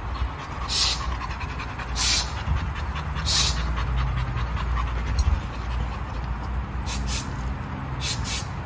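A pit bull breathing hard, in breathy puffs about a second or so apart, over a low rumble.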